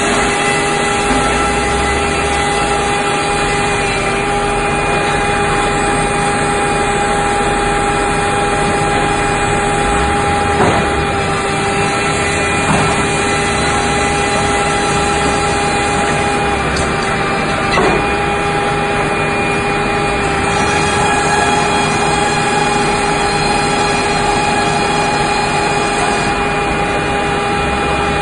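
Sawmill's five-foot circular head saw running with a steady whine and noise as the carriage feeds a large log through it, with a few sharp knocks along the way.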